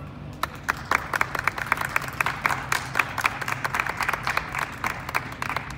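A small group applauding, sharp hand claps starting about half a second in.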